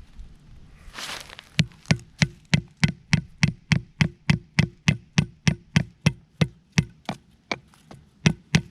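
The back of a hatchet hammering a wooden stake into the ground, a steady run of sharp knocks at about three blows a second, starting about a second and a half in.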